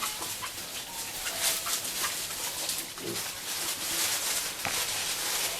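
Pigs feeding, with a steady crackle of chewing and rustling fodder and a few short grunts.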